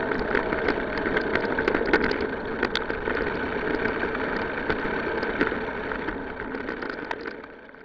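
Steady mechanical running noise with many scattered clicks and rattles, fading out near the end.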